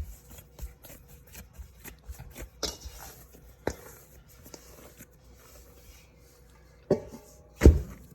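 Hands pressing and knocking the air out of risen bread dough, with soft rubbing and scattered dull knocks on the bowl or counter. The two loudest knocks come near the end.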